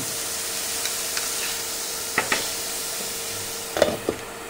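Water sizzling into steam on a hot tawa around a kulcha, a steady hiss that eases off slightly near the end, with a few short knocks of a utensil about two seconds and four seconds in.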